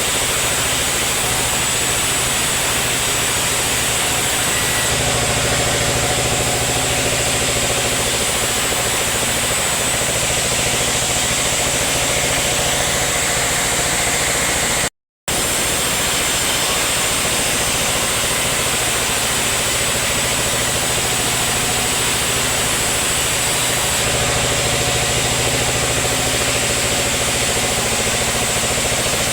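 Sawmill machinery running steadily: an engine drone under a constant hiss. The sound cuts out for a moment about halfway through.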